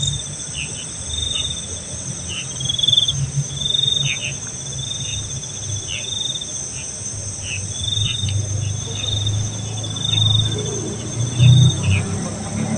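Insects calling: a steady high-pitched drone with a chirp repeating about once a second, over a low rumble.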